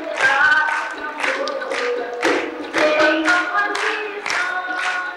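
A woman singing a Sindhi folk song in held, wavering phrases over steady hand-clapping, a little over two claps a second.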